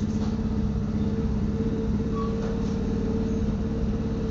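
A steady low machine hum, like a motor running, holding two even tones with a fast flutter underneath and no change in pitch.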